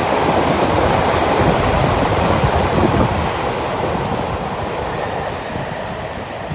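Running noise inside a Keio 1000 series electric train (Toyo Denki IGBT VVVF): a dense rumble of wheels on rail, with short high chirps in the first half, growing steadily quieter after about three seconds as the train slows.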